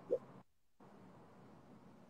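Faint steady hiss of a live video-call audio stream, with a short pitched blip right at the start and a brief gap where the sound cuts out completely about half a second in.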